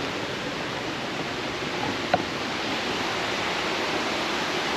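Steady rush of the Lech river's water and waterfall. A single short click about two seconds in.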